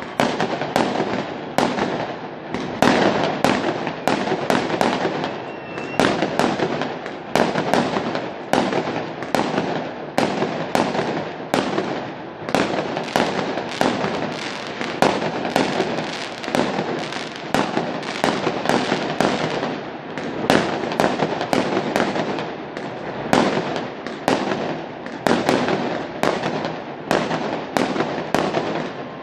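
Fireworks going off continuously: a dense run of bangs and pops, several a second, over a constant crackle.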